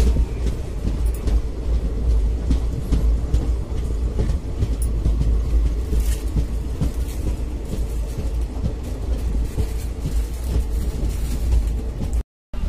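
Passenger train running along the track, heard at an open coach window: a steady low rumble and running noise with scattered clicks. It cuts out briefly near the end.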